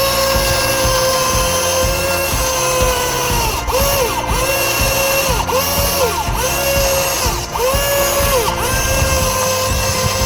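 Small electric gear motors of a DIY radio-controlled model whining steadily. Between about three and eight seconds in, the pitch dips and climbs back several times as the motors slow under load and speed up again.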